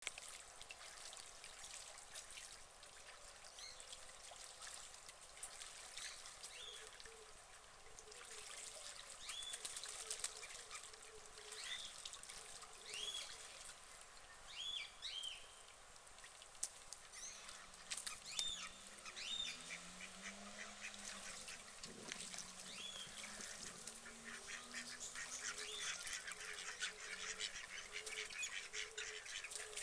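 White domestic ducks quacking now and then while bathing in a pond, with water splashing throughout. Near the end there is a denser burst of splashing as a duck flaps its wings in the water.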